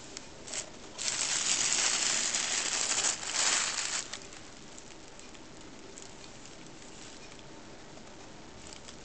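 Crinkly wrapping rustled and crumpled as a cat paws or pokes into it: a loud spell of rustling about a second in, lasting some three seconds, then only faint rustles.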